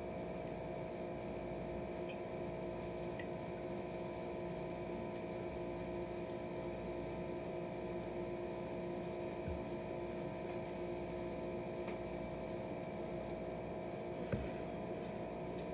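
Soft chewing of pasta with a few faint clicks and one sharper click near the end, over a steady electrical hum.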